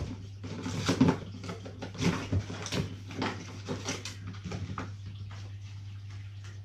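Cardboard bike box being opened by hand: a run of irregular scrapes and rustles of cardboard and packaging that die away after about five seconds.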